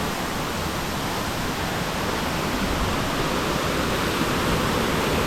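Waterfall falling heavily: a steady rush of pouring water that grows slightly louder toward the end.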